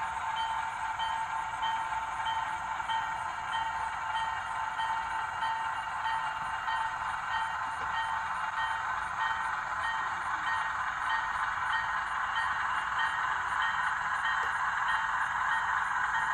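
HO scale model train rolling along the track, a steady running whine and wheel noise with a faint regular tick a little more than once a second. It grows a little louder near the end.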